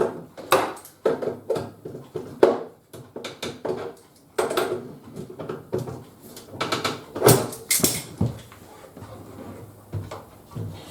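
Irregular knocks, clicks and clatters of objects being handled, with the loudest pair about seven to eight seconds in.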